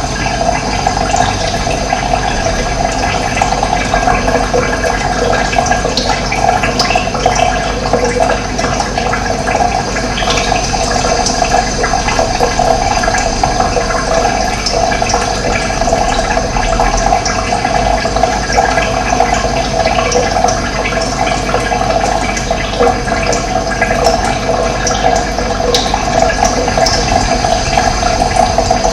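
Steady running water, flowing without a break.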